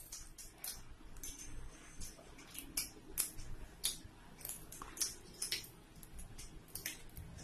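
Faint, irregular small clicks and soft taps of fingers breaking idli and picking at curry on a plate.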